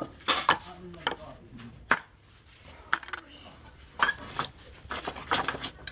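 Turning chisel biting into a wooden bowl spinning on a lathe, in about ten short, sharp cutting bursts at uneven intervals.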